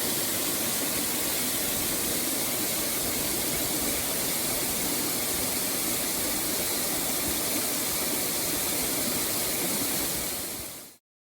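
Steady rushing of the partly frozen Haha no Shirataki waterfall pouring down, fading out quickly about ten and a half seconds in.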